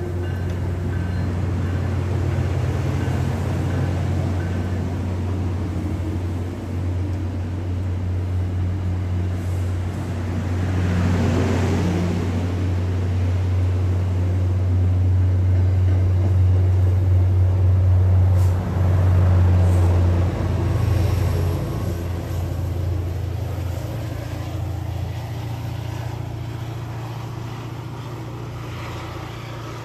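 MBTA commuter rail train pulling out, pushed by its F40 diesel locomotive: the engine's steady low drone, with the coaches rolling, is loudest about two-thirds of the way through as the locomotive passes, then fades as it moves away.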